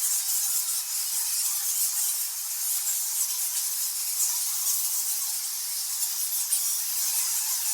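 A cave colony of thousands of nectar bats squeaking and screeching at once, a dense, high-pitched chatter that runs on steadily without pause.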